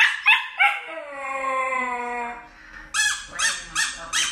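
A dog gives three short yips, then one long howl that falls slightly in pitch, then several more short yips near the end.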